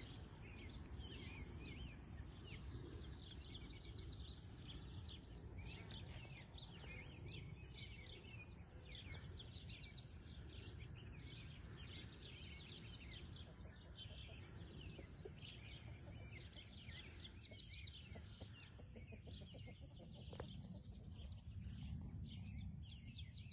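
Outdoor pasture ambience: many small wild birds chirping and twittering in quick repeated notes, over a steady low rumble.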